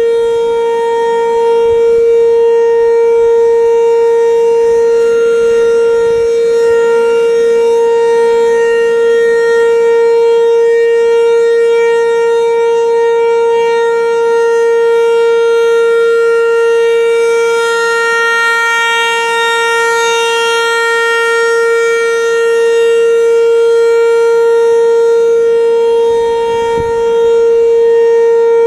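Federal Signal 508 outdoor warning siren sounding a loud, steady tone held at one pitch, in a tornado drill test.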